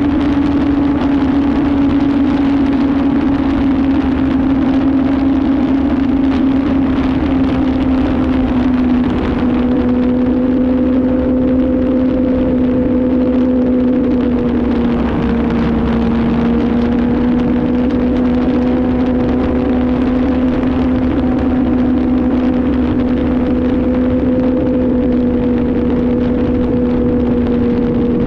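Motorcycle engine running steadily at cruising speed through the bends, one even engine note that dips slightly about nine seconds in, over the low rush of wind on the microphone.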